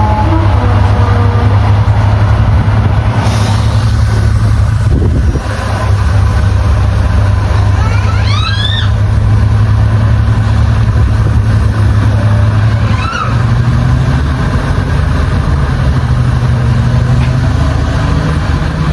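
Class 55 Deltic diesel locomotive's Napier Deltic engines running with a steady low drone, the note stepping up a little about thirteen seconds in. A few short high squeaks sound about eight seconds in.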